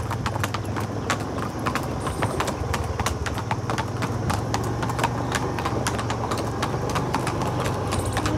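Hooves of two Marwari horses clip-clopping on a brick-paved lane: many quick, overlapping hoofbeats, with a steady low hum underneath.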